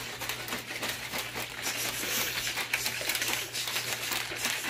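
Plastic shaker bottle being shaken hard to mix a powdered shake, its whisk ball rattling rapidly against the walls as the liquid sloshes.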